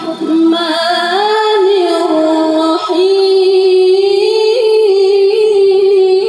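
A qari's voice reciting the Qur'an in melodic tilawah style, high and drawn out. He holds long ornamented notes, one long note from about halfway through.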